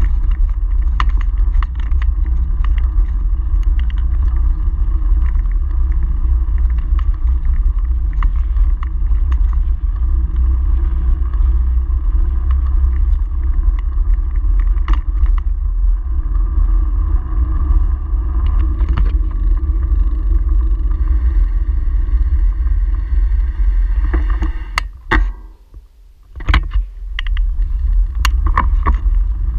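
Wind buffeting and road rumble on a handlebar-mounted camera of a moving bicycle, with scattered knocks and rattles from the bike over brick paving. The rumble drops away for about a second near the end, then comes back.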